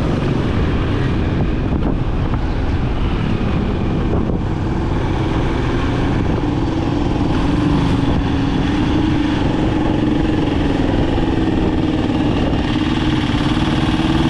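Motorcycle engine running steadily at riding speed, heard from on board with wind rushing over the microphone; the engine note grows stronger about halfway through.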